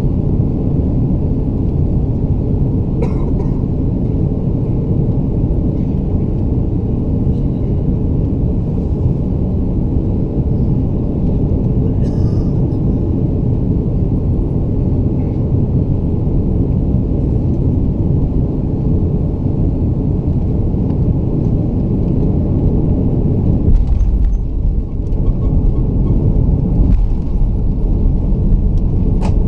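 Steady cabin rumble of airflow and engines inside an Airbus A330-300 on final approach, heard from a seat by the wing. About 24 s in a deeper rumble sets in as the main wheels touch down and roll on the runway. A few seconds later the engine noise swells as the thrust reversers open.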